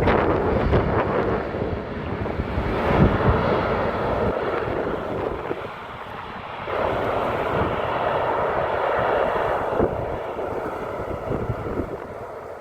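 Jet airliner engine noise, with wind buffeting on a smartphone microphone; the engine sound eases a little in the middle and swells again about seven seconds in.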